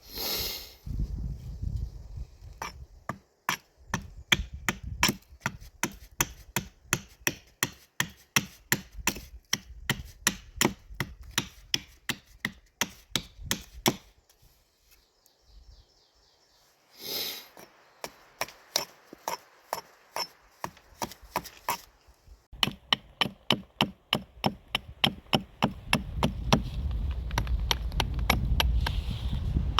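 Carpenter's axe chopping into a wooden spoon blank with rapid light strokes, about two to three a second, pausing briefly midway, then quickening to about four a second near the end. Two short rustling bursts, one at the start and one after the pause.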